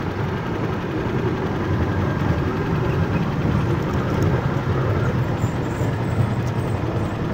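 Cambodian bamboo train (norry) running along the rails: its small engine running steadily under a continuous rumble of the wheels on the track.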